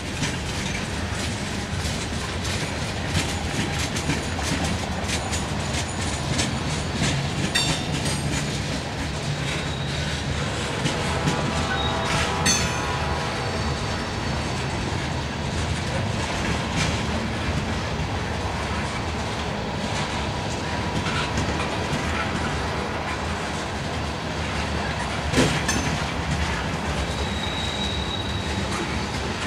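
Freight cars of a mixed freight train, mostly hopper cars, rolling steadily past: a constant rumble of steel wheels on rail with clickety-clack over the rail joints. A couple of sharp clanks stand out, about twelve seconds in and again near the end, along with a brief faint high squeal.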